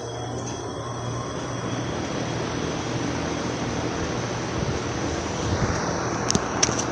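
A 5-ton Trane XR13 heat pump's outdoor unit starting up in heat mode. Its scroll compressor hums steadily while the rushing air of the outdoor fan slowly grows louder. A few sharp clicks come near the end.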